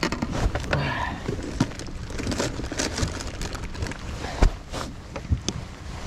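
Clicks and knocks of a bass boat's deck storage hatch being opened and shut and tackle being rummaged through, with one louder knock about four and a half seconds in, over a low rumble of wind and water.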